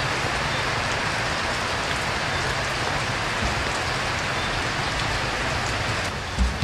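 Steady rain hiss. Near the end the hiss thins slightly and there is a short low thump.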